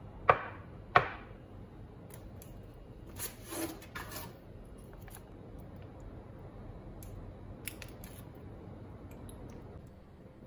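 Two sharp clinks of a glass bowl knocked on a kitchen counter, then a foil pouch crinkling as it is opened, followed by a few light taps of a spoon.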